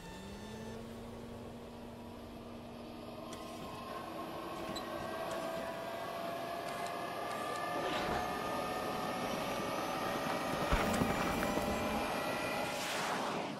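Sound effect of Santa's sleigh taking off: an engine-like whine of several tones rising slowly in pitch over a rushing noise that grows louder, ending in a whoosh.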